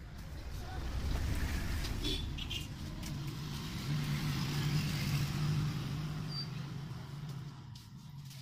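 A motor vehicle passing by: engine noise builds over the first second or so, holds with a steady low engine hum through the middle, and fades away near the end.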